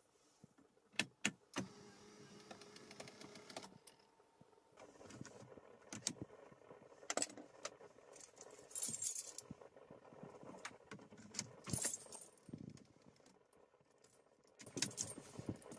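Mercedes-Benz SmartKey jingling and clicking as it is handled, pushed into the dashboard ignition slot and turned. A few sharp clicks about a second in and a short steady hum just after come before the key sounds.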